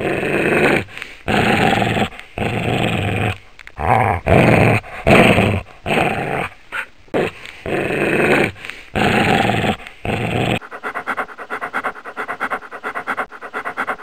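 A dog growling in repeated rough bouts of about half a second to a second each, with short breaks between them. From about ten and a half seconds in, it gives way to a quieter, quick run of short pulses, about four or five a second.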